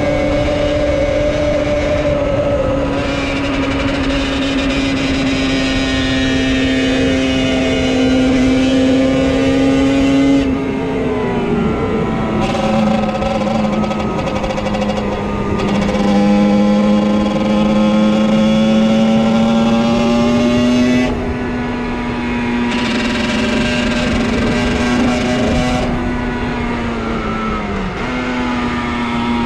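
50cc motorcycle engine running under way at a steady buzzing note. About ten seconds in the pitch drops sharply and then climbs slowly; around twenty seconds in it eases and quietens, with a brief dip near the end.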